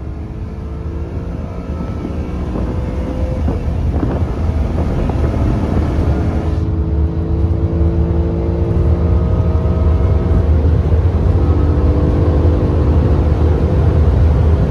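BMW E90 M3's V8 pulling under acceleration, heard inside the cabin over a low road rumble. Its note climbs and grows louder, drops back at a shift about four seconds in, then climbs again until it levels off about ten seconds in.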